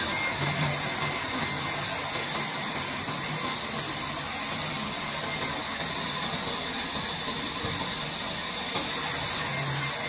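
Large sawmill band saw running with a steady rushing noise as a long wooden plank is fed along its table into the blade.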